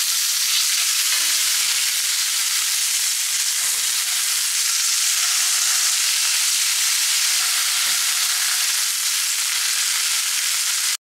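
Beef tenderloin steaks searing in a very hot, oiled cast-iron skillet: a steady, high sizzling hiss of meat frying. A couple of faint knocks of metal tongs against the pan come as the steaks are turned, about a third of the way in and again later.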